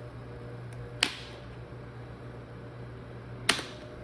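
Kuo Horng ST-161 oscillating fan running with a steady motor hum, its freshly oiled bearings still a little sticky. Two sharp clicks with a short metallic ring come about a second in and again about two and a half seconds later.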